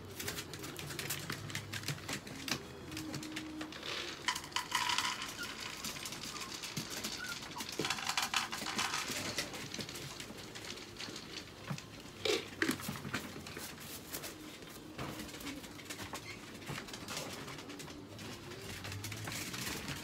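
Handling noises at wire dog crates while a dog toilet tray is changed: many small clicks and knocks, two stretches of rustling about four and eight seconds in, and a couple of sharper knocks about twelve seconds in.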